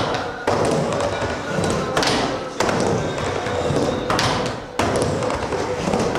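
Skateboard riding a plywood mini ramp: the wheels roll continuously on the wood, and five sharp knocks come as the board's trucks hit the metal coping and drop back in.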